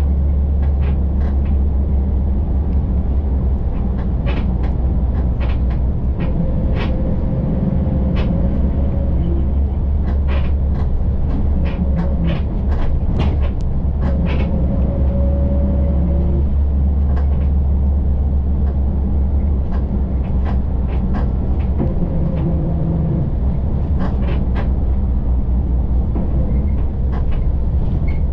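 Ride inside a moving city bus: a steady low engine and road rumble, with frequent short rattles and clicks from the cabin and a faint whine that comes and goes a few times.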